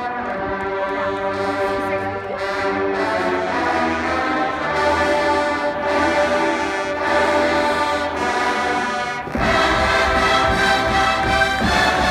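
Marching band brass playing sustained chords that change every second or two; about nine seconds in the full band with drums comes in louder.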